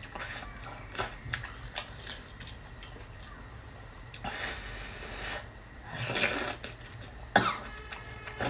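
A person slurping noodles from spicy noodle soup: two long wet slurps, one a little after four seconds in and another about six seconds in, with a few short clicks and smacks between.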